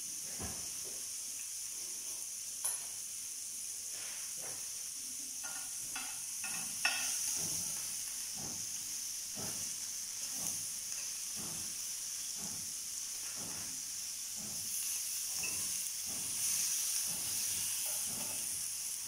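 Chicken and vegetable skewers sizzling steadily in a hot ridged grill pan. Light clicks and taps come through the sizzle as the skewers are turned over in the pan with a metal spoon.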